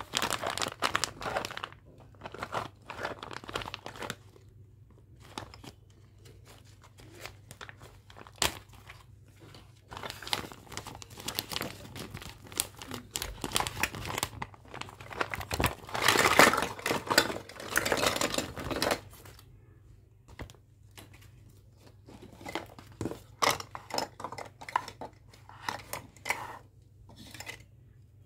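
Clear plastic packaging bag crinkling and rustling in irregular bursts as hands open it and pull out toy plastic fruit pieces, loudest a little past halfway.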